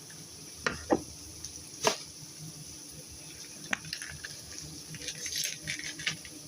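Kitchen clatter: a few sharp knocks and clinks of utensils on cookware in the first few seconds, then a short run of lighter scraping and clinking, over a steady background hiss.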